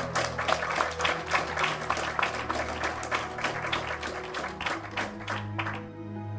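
Guests applauding, many hands clapping at once, over soft background music. The applause cuts off abruptly near the end, leaving only the music.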